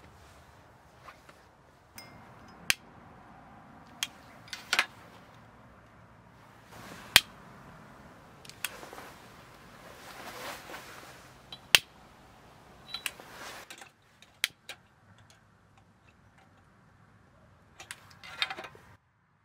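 Scattered sharp clicks and light knocks of glass lamps and small objects being handled and set down on a wooden table, a dozen or so in all, with brief rustling between them.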